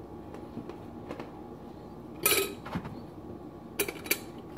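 Handling of food and plastic dishes while strawberries are set out on a serving board: a few soft taps and rustles, with a louder rustle about two seconds in and two quick clicks near the end.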